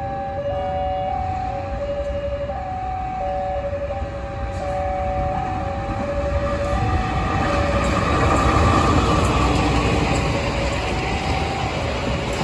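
KAI diesel-electric locomotive hauling a freight train of cargo vans past, its engine and wheels on the rails growing louder to a peak just past the middle. Through the first half a two-note electronic warning signal alternates high and low about once a second.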